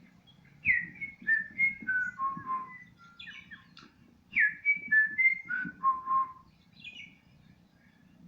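A songbird singing two phrases of clear, whistled notes, each phrase stepping down in pitch from high to low over about two seconds, the second starting about four seconds in. A shorter, fainter call follows near the end.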